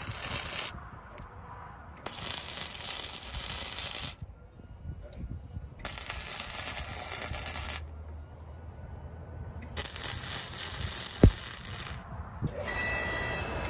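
Welding the die piece onto a log-splitter frame: four runs of about two seconds each, with short pauses between.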